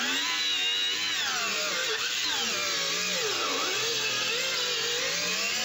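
DUALSAW CS 300 circular saw, its two counter-rotating blades running and cutting under load. The motor's pitch wavers, dipping and recovering as the cut loads it, with the deepest dip about three and a half seconds in.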